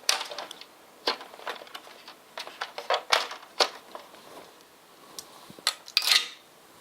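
Metal body clips being pulled off the body posts of an RC crawler and the plastic body lifted away: a scattered series of sharp clicks and taps, with a short scraping rustle about six seconds in.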